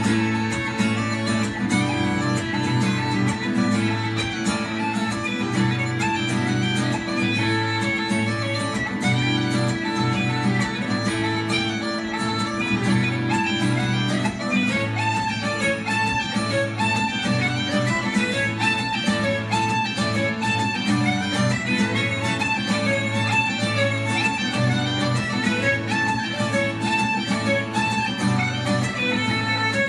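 Irish traditional tunes played live on fiddle, uilleann pipes and acoustic guitar: a bowed fiddle melody with the pipes over a guitar accompaniment, continuous with no break.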